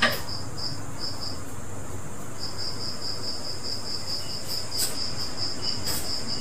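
A cricket chirping in a steady run of short, high-pitched pulses, about five a second, with a pause of about a second near the start.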